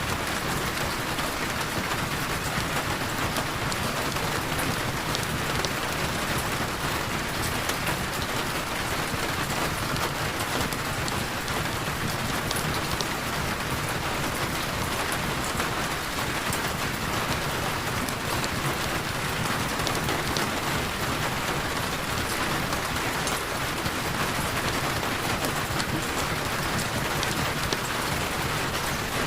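Heavy rain falling steadily, an even hiss with a dense patter of drops.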